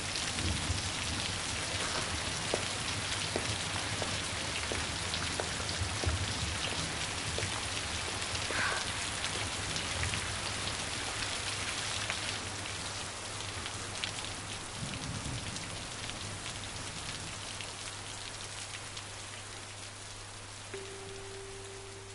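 Heavy rain falling steadily, a dense even patter that slowly grows quieter. A steady held tone comes in near the end.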